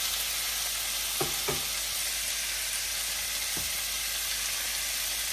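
Sliced bitter melon frying in hot mustard oil in a pan, a steady sizzle. A few short knocks from stirring come about a second in and again past the middle.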